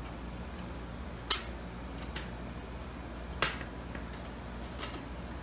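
Hog ring pliers crimping hog rings onto a seat cover's listing wire: four short sharp clicks over a low steady background, the loudest about a second in and about three and a half seconds in.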